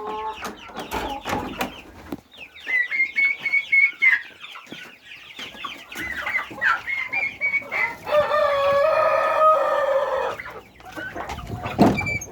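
Chickens clucking and calling, with a rooster crowing once in one long call starting about eight seconds in.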